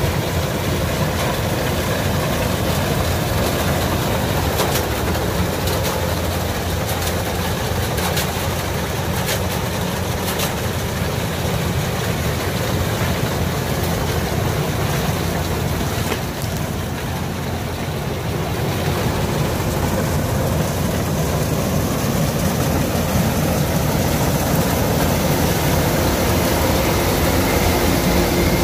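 Kubota DC105X combine harvester running steadily under load as it cuts and threshes rice, its diesel engine and machinery making a constant loud drone, with a run of brief ticks between about four and eleven seconds in and a slight dip in level a little past halfway.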